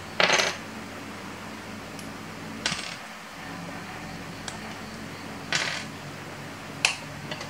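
Plastic LEGO plates and bricks being pulled apart by hand: a few short clicking snaps a couple of seconds apart, the loudest just after the start and a sharp one near the end.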